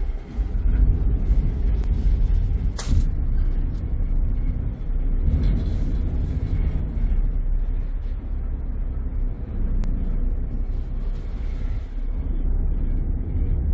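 Steady low rumble of a harbour passenger ferry under way, its engines running. A single sharp knock sounds about three seconds in.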